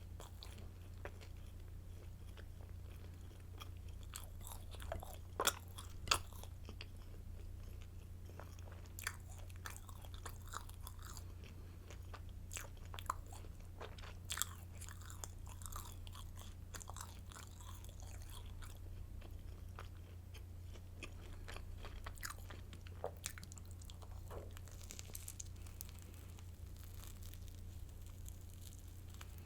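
Close-up eating sounds of crunchy garlic stick baguette: crisp bites and chewing with scattered sharp crackles of the crust, the loudest about five to six seconds in, over a steady low hum.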